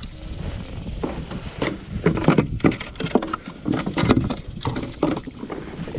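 Irregular splashes and knocks from a hooked bass being played at the surface and landed into a kayak, busiest through the middle.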